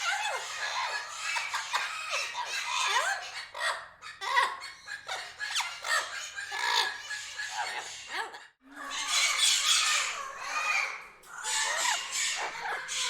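Parrots squawking and chattering in a busy run of short, sharply gliding calls, broken by a sudden brief gap about two-thirds of the way through.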